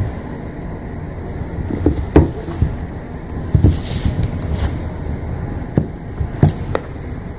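Low rumbling handling noise on a phone's microphone as it is moved about by hand, with a few soft knocks.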